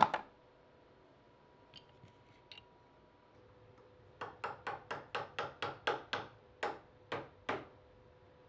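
A loud knock, then about a dozen sharp hammer taps at roughly four a second, spacing out toward the end.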